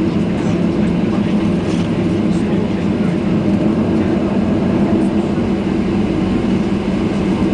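Steady drone of a Boeing 737-800's CFM56 turbofans at climb power, with the rush of air past the fuselage, heard from inside the passenger cabin just after takeoff.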